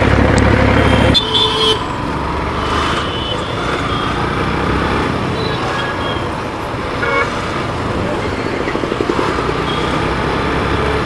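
Motorcycle engine and road noise heard from a helmet-mounted camera while riding in city traffic, louder for the first second or so and then steady. A few short horn toots sound, the clearest about a second and a half in.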